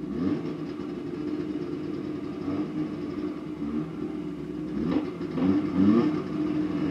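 1970 Ski-Doo Olympic's 399cc two-stroke twin engine idling, with a brief rev near the start and a couple more quick revs about five seconds in.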